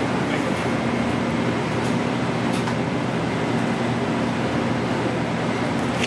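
Steady mechanical drone of running kitchen equipment, a rushing noise over a low hum.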